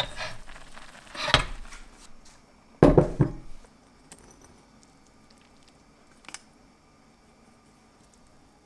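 Dishes clattering: two knocks about a second and a half apart, the second the loudest, as a pot and a ceramic bowl are handled, with a small tick later on.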